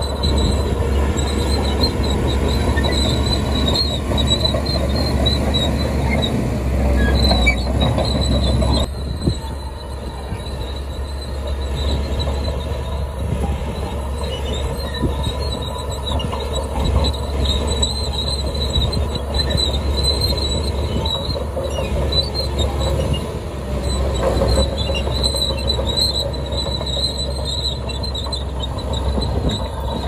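Small crawler bulldozer's diesel engine running under load as it pushes dirt and rocks, with the steel tracks clanking and a wavering high squeal throughout.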